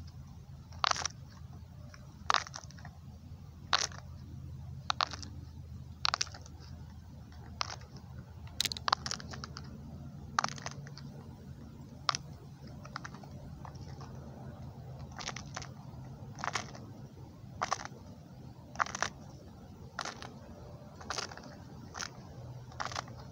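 Silicone pop-it fidget toy, its bubbles pushed through one at a time by fingers: a sharp pop about every second, with a few in quick succession near the middle.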